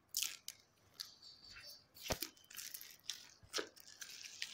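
Clear plastic shrink-wrap being torn and peeled off a smartphone box, a run of crinkling, tearing rustles with a couple of sharper snaps.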